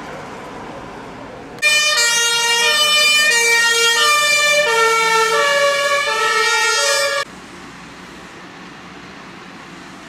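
German two-tone fire-engine siren (Martinshorn) alternating between two pitches, loud, starting abruptly about one and a half seconds in and cut off abruptly about five and a half seconds later. Traffic noise comes before it, and a steady low noise follows.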